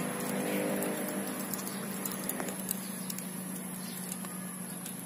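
Charcoal and dry bamboo kindling burning in a small open fire, crackling with scattered sharp pops as the charcoal catches, over a steady low hum.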